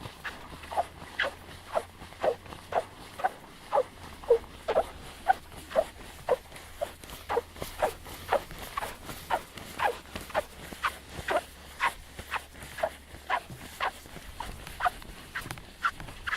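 Squeaking beach sand under a foot sweeping across it: short, high squeaks, about two a second, one per stroke.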